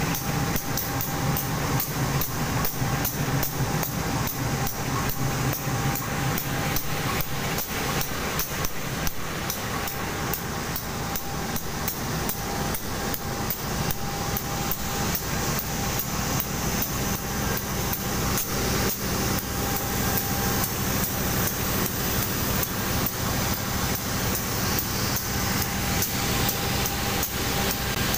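Diesel-electric locomotive (KAI CC 201) running close by: a steady engine hum with a fast, even knocking clatter and a thin steady whine over it.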